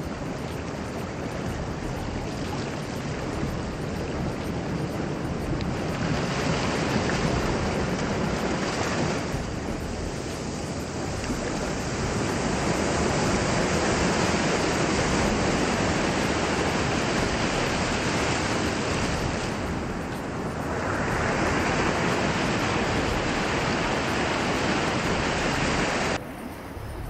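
Lake surf breaking and washing up over coarse sand right at the waterline, a dense rushing wash that swells and eases every several seconds. It drops sharply in level about a second before the end.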